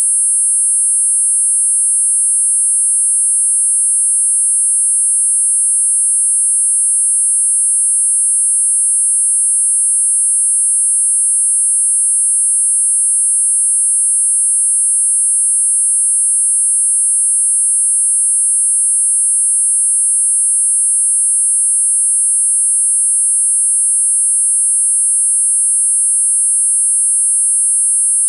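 Four steady, high-pitched synthesized sine tones sounding together without a break, at 8.5, 9, 10 and 10.5 kHz: a multi-tone tinnitus masker.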